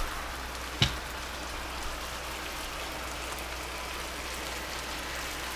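Steady sizzling hiss of food frying in a hot pan, with one short click about a second in.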